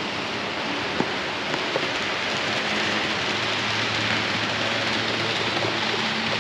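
Model trains running on a large layout: a steady rolling hiss with a faint low hum under it, and a single click about a second in.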